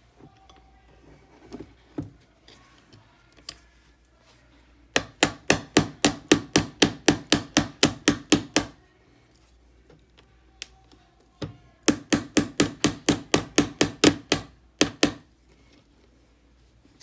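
Hammer striking a pointed chisel against the back end of a factory-pressed copper rivet in a skate blade holder, driving the rivet out. The strikes come in two quick runs of about five a second, each lasting three to four seconds, after a few light clicks.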